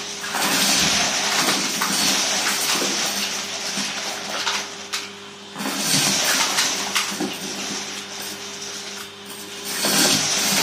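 Vacuum cleaner running through a metal wand and sucking up paper confetti and sequins from a carpet: a steady suction hiss over a motor hum, with a crunchy rattle of the pieces going up the metal tube. The rattle eases briefly about five seconds in, then picks up again.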